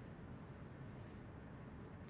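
Faint room tone: a low hum and a light hiss, with no distinct sound.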